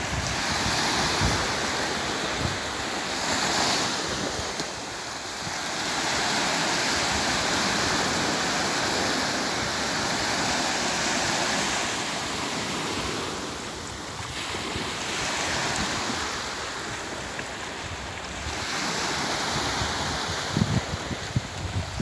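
Small waves breaking and washing up a sandy beach, the surf swelling and fading every few seconds. Wind buffets the microphone with low thumps near the end.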